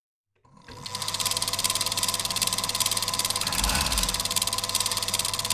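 Film projector running: a fast, even mechanical rattle with a steady hum, starting about half a second in.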